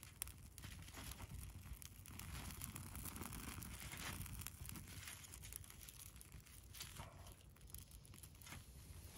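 Faint crackling of a wood and dry-leaf campfire, with scattered sharp pops.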